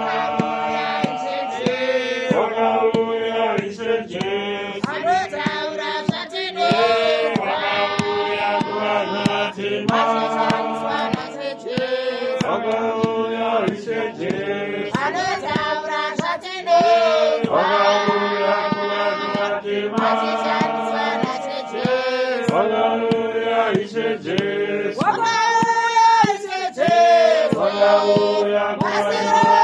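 A congregation of men and women singing a hymn together in slow phrases of held notes.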